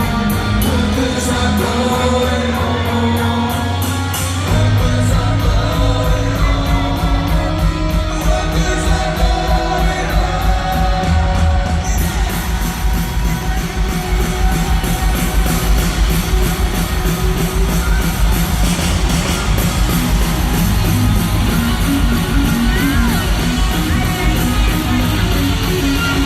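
Live rock band playing in a large hall, with electric guitars and singing. The full band comes in hard about four seconds in, and the sound gets brighter again about twelve seconds in.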